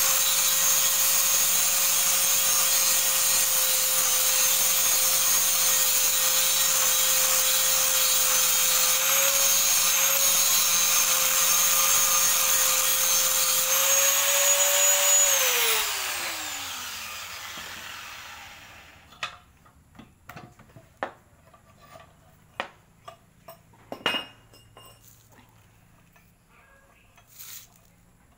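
Electric angle grinder grinding a metal piece clamped in a bench vise to clean off rust: a steady high whine with the hiss of the disc on metal, its pitch lifting briefly when the disc comes off the work. About fifteen seconds in it is switched off and spins down with a falling whine, followed by a series of light clicks and knocks.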